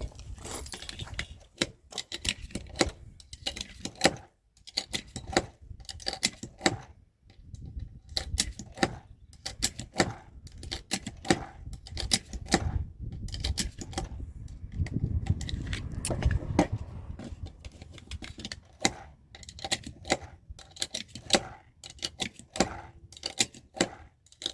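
Pistol magazines being loaded with cartridges using a magazine speed loader: an irregular run of sharp metallic clicks as rounds are pressed in one after another, with brief pauses between.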